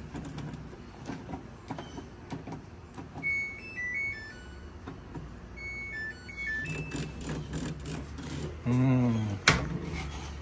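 A Samsung dryer's control panel playing short electronic beep tunes, twice, while the cycle selector knob is worked, over a low steady hum. Near the end comes a short falling tone, then a sharp click, fitting the door being opened.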